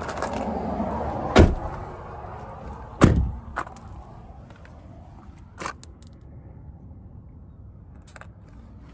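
Two loud slams about a second and a half apart, like doors of the truck or its service-body compartments shutting, followed by a few lighter clicks and knocks; a low rumble fades out at the start.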